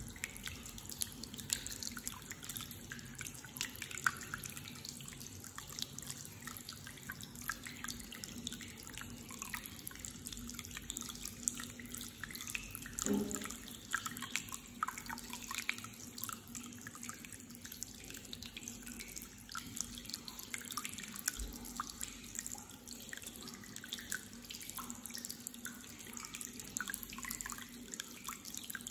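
Hot spring water running and dripping into a rock-lined bath: a steady trickle with a constant patter of drops. One louder thump about thirteen seconds in.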